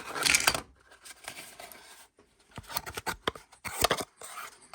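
Small cardboard knife boxes being opened and handled: a brief rustle of cardboard, then a run of sharp clicks and short scrapes.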